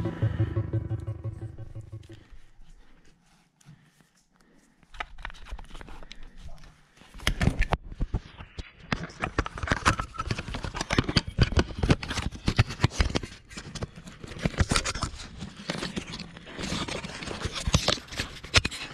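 Background music fading out, then after a brief quiet a dense run of crunching, scraping and clicking close to the microphone: someone moving over old wooden mine timbers and rubble.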